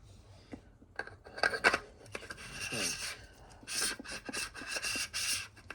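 Handling of the Imalent MS18 flashlight's parts: a few sharp clicks, then repeated rasping scrapes and rubbing, like metal parts being turned and fitted together.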